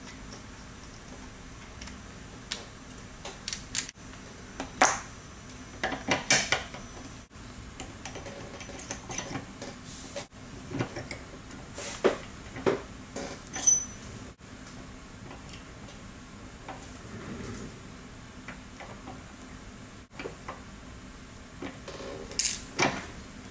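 Metal parts of a Lindova XT810/XT912 tool being handled and assembled: irregular clicks and clinks of metal on metal as the parts are fitted, turned and worked in a bench vise.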